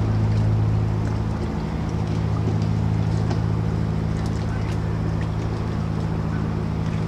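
Motorboat engine running steadily, a low even hum.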